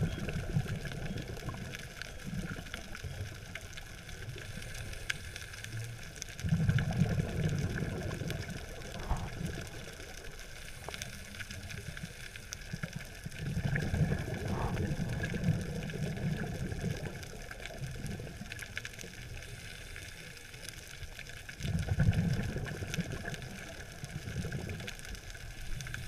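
Scuba diver's exhaled bubbles from the regulator, heard underwater: a low bubbling rumble lasting a couple of seconds at the start and again about every seven to eight seconds, with a steady underwater hiss in between.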